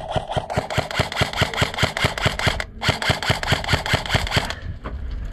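Airsoft rifle firing on full auto: two long strings of rapid, evenly spaced shots with a short break a little past halfway, stopping near the end.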